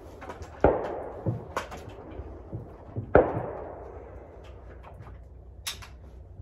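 Two rifle shots from a KR-103SFS, an AK-pattern rifle in 7.62x39mm, about two and a half seconds apart, each with a ringing tail under the covered wooden firing line.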